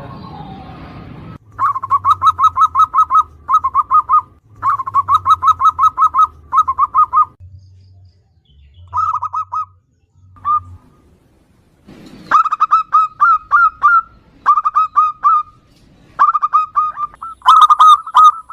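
Zebra dove chick giving begging calls: rapid trains of short chirps, about ten a second, in bursts of one to two seconds with pauses between, and a quieter gap about halfway through.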